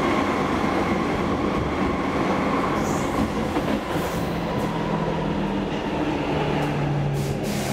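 Stockholm Metro C6 train running, heard from inside the carriage: a steady rumble of wheels on rail. In the second half a humming tone steps lower in pitch.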